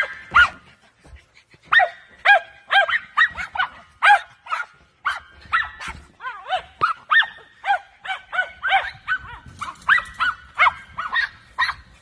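Small dogs barking rapidly while playing with a large exercise ball: short, high-pitched barks, a few each second, with a brief pause about half a second in.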